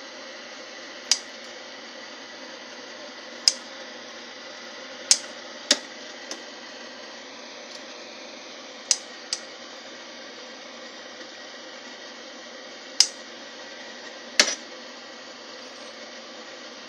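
Kitchen scissors snipping through boiled pork skin: about nine sharp, short clicks of the blades closing, irregularly spaced a second or a few seconds apart, over a steady hum.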